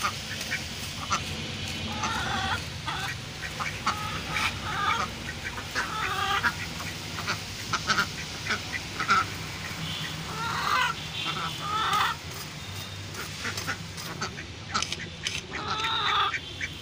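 Ducks quacking now and then, short nasal calls every second or two, over rapid scratchy clicks of fish scales being scraped off against the edge of a fixed curved boti blade.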